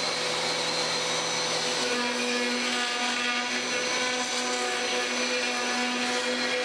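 Wet/dry shop vacuum running steadily at full speed; about two seconds in, a second steady motor hum joins it.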